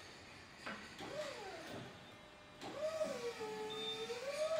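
Electric motor of a Raymond narrow-aisle swing reach truck whining as the truck moves: a short whine about a second in that rises and falls in pitch, then a longer one that rises, holds steady and falls away near the end.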